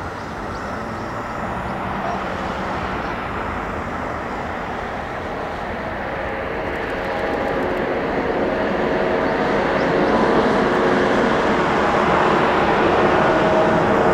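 Airbus A340-300's four CFM56-5C turbofan engines at take-off thrust as the jet rolls down the runway, lifts off and climbs. The sound grows steadily louder, and about halfway through several steady engine tones rise above the rushing jet noise.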